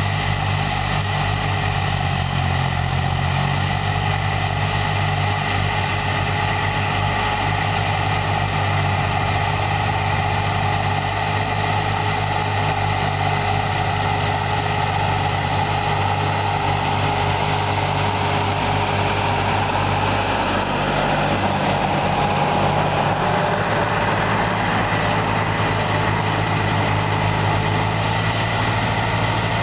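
Diesel engines of two Hattat tractors running steadily under load while pulling tillage implements through the soil; the sound grows a little louder in the second half as the nearer tractor comes closer.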